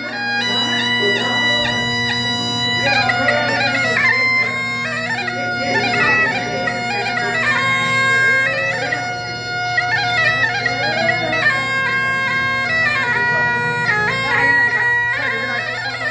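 Masakbeen, the Kumaoni bagpipe, playing a melody over a steady drone, moving between held notes with quick ornamented runs.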